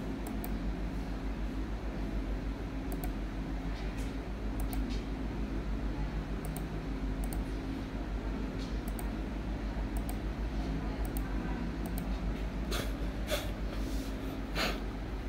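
Sparse clicks from a laptop being worked while a document is edited, with a few louder clicks near the end, over a steady low hum.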